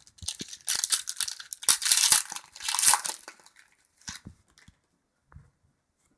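A hockey card pack's wrapper being torn open and crinkled for about three seconds, followed by a few soft clicks of cards being handled.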